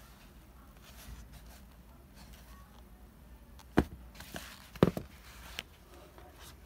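Handling sounds of a knit sock sneaker with a rubber sole being turned over and set down on a wooden floor: two sharp knocks a second apart about four seconds in, a smaller one after, with faint rustling between.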